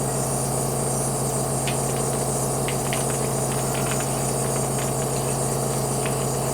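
Nebulizer air compressor running with a steady hum, with a few faint ticks over it.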